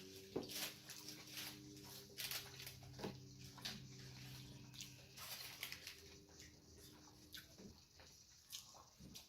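Quiet, close-miked chewing of a fast-food sandwich: wet mouth clicks and smacks scattered throughout. Under them is a low steady hum that fades out about two-thirds of the way through.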